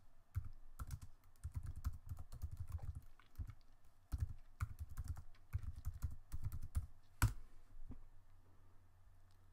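Typing on a computer keyboard: a run of quick key clicks for about seven seconds, with one louder key strike near the end, then the typing stops.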